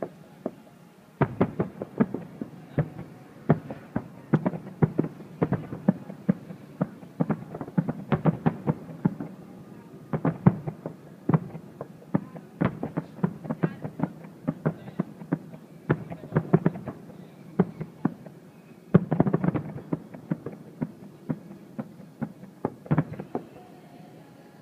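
Aerial firework shells bursting in a display: a rapid, irregular series of sharp bangs, with a dense flurry of bursts about three-quarters of the way through.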